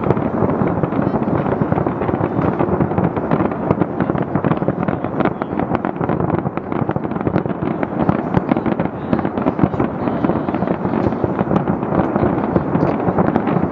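A fireworks barrage fired from a skyscraper, going off in a dense, unbroken run of overlapping bangs and crackle.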